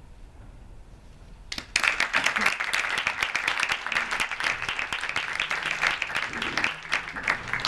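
Audience applauding, breaking out suddenly about one and a half seconds in after a moment of quiet room tone.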